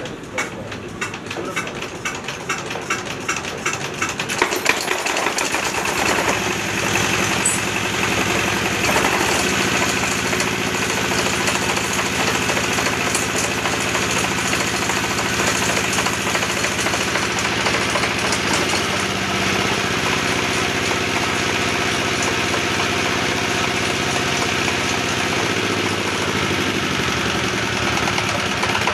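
Dong Hai 16 hp single-cylinder diesel engine being hand-cranked, its strokes quickening over the first few seconds, then catching about five seconds in and running steadily.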